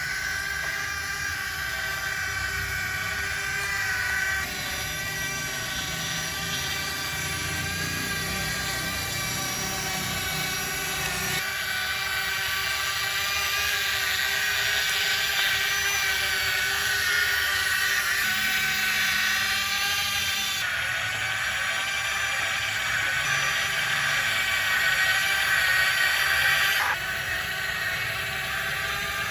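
Excavator's drive motors whining steadily, with the pitch and level shifting abruptly several times as it works.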